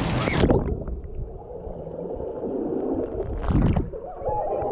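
People jumping into a swimming pool with a big splash, after which the sound turns muffled and low, heard from under the water surface: gurgling and rumbling water, with one brief splash about three and a half seconds in.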